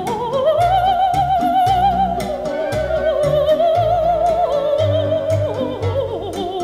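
Music: an operatic voice with wide vibrato slides up into a long held high note and falls away near the end, over a bass line and light percussion.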